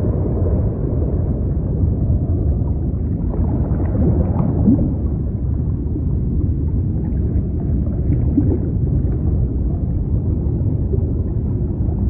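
Sea ambience used as sleep noise: a steady, muffled low rumble of waves, with a few faint short squeaks about four seconds in.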